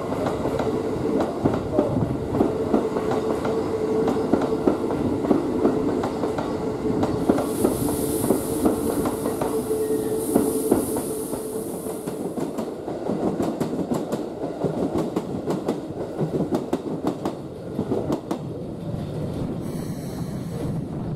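Keikyu electric commuter train moving slowly through the station, its wheels clattering over rail joints and points. A steady whine runs through the first half and stops about twelve seconds in, and a high hiss comes in for a few seconds just before that.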